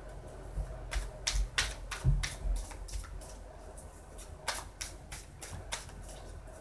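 A thin-cardstock tarot deck being hand-shuffled: a quick run of cards flicking and slapping against each other about a second in, then a few more flicks near the end.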